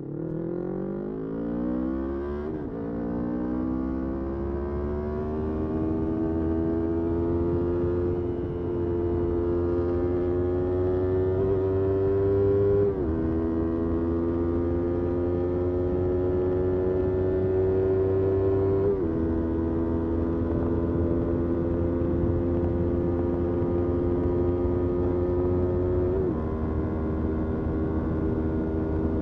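Motorcycle engine pulling away and accelerating up through the gears. The pitch climbs within each gear and drops briefly at each upshift: one shift about 2.5 s in, then three more spaced out across the rest, each later gear rising more slowly.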